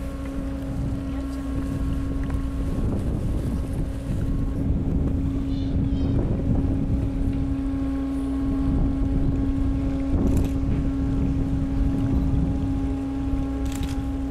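A boat engine idling with a steady, unchanging hum, over the low rumble of wind on the microphone.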